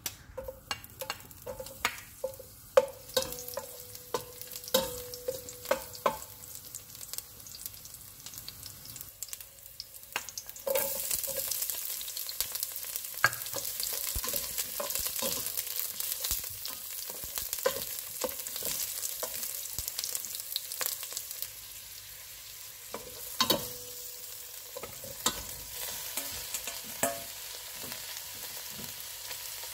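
Garlic and onions sizzling in hot olive oil in a stainless steel pot, stirred with a spatula that clinks against the pot, each clink ringing. The sizzle jumps much louder about ten seconds in as more food goes into the oil.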